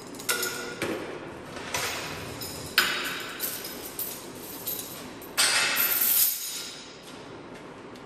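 Metal clanking and clinking: a run of about seven sharp knocks, the sharpest nearly three seconds in, then a longer metallic rattle lasting about a second from about five and a half seconds in.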